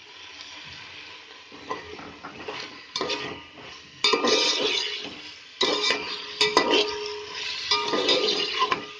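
Sliced onions sizzling in hot mustard oil in a metal pot, with a metal spoon stirring and scraping against the pot. It is quieter at first, and the stirring strokes get louder and more frequent about four seconds in.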